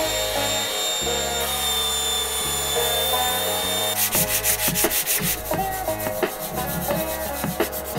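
A steel piece being worked by hand against sandpaper and a file, in quick, even back-and-forth scraping strokes from about four seconds in, heard over background music.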